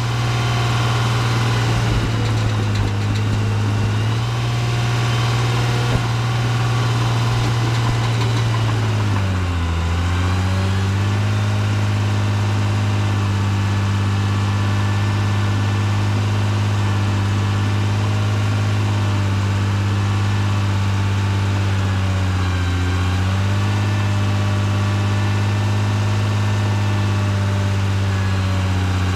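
Caterpillar D3C LGP crawler dozer's diesel engine running steadily at working speed. It pulls down in pitch briefly about a third of the way in and again about three-quarters of the way through, then picks back up, as the blade takes load.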